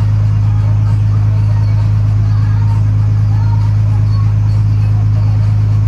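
Ferry boat's engine running at a steady cruising speed, a loud, even low drone that does not change.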